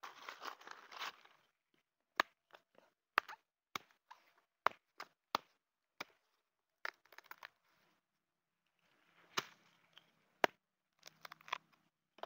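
Machete blade chopping and cutting into a cacao pod's thick husk: a string of sharp, separate knocks, with crunching and rustling near the start and again near the end as the pod is handled and split open.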